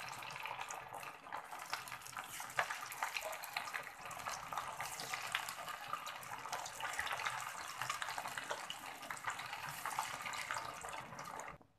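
Mutton keema tikkis deep-frying in hot oil: a steady sizzle full of small crackles and pops, cutting off abruptly just before the end.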